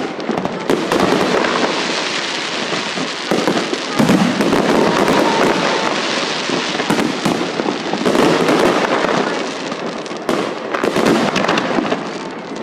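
Fireworks display: shells bursting and crackling in a dense, unbroken run, with heavier bangs about four seconds in and again around eight and ten seconds.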